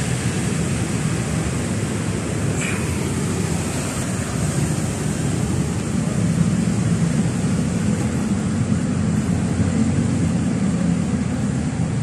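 Steady low rumbling noise, with a brief swish about two and a half seconds in.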